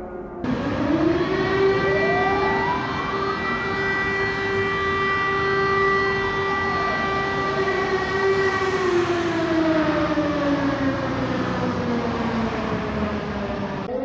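Civil defence air-raid sirens wailing over the city, more than one overlapping. The sound starts abruptly about half a second in with a rising tone, holds a steady pitch, then slowly falls through the second half.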